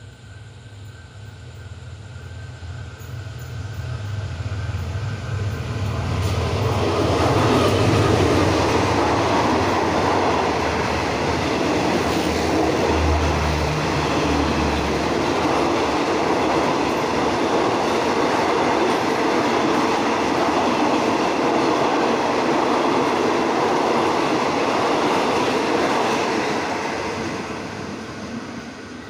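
Diesel-hauled passenger train of stainless-steel coaches running through a station at speed without stopping. A low hum builds as it approaches, then comes about twenty seconds of steady wheel-on-rail noise that fades out near the end as the train moves away.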